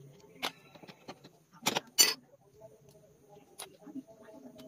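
Metal clutch parts of a Yamaha RX King clinking and knocking as they are pulled by hand out of the clutch basket: a few sharp clinks, the loudest pair near the middle.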